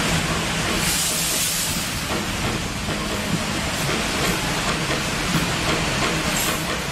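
City buses driving over rain-wet pavement: a steady engine hum under a constant hiss of tyres and spray, which swells briefly about a second in.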